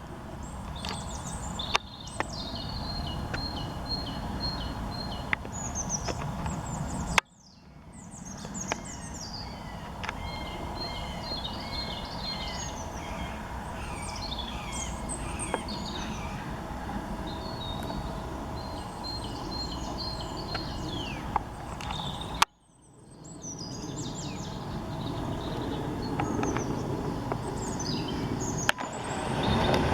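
Several small birds singing and calling over one another, among them a steady series of repeated high notes early on, over a steady low background rumble. A few single sharp clicks. The sound breaks off abruptly twice where the recording is cut.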